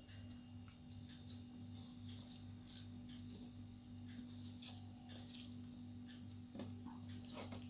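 Fingers mixing and squeezing rice with curry on a metal plate: faint soft squishing and small scattered clicks, over a steady low hum.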